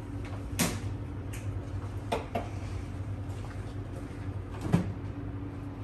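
Beaten eggs sizzling faintly in butter in a nonstick skillet on an electric stovetop, over a steady low hum, with about five light clicks and taps; the loudest tap comes near the end.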